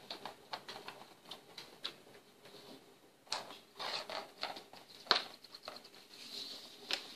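Irregular small clicks and knocks of a Hot Wheels track clamp being screwed tight to a table edge while the orange plastic track piece is held against it, with a few sharper clicks about three, five and seven seconds in.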